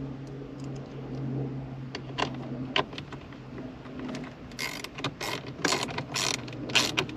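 Small ratchet wrench clicking as it turns a nut: a few separate clicks, then from about four and a half seconds in a quick run of ratcheting strokes.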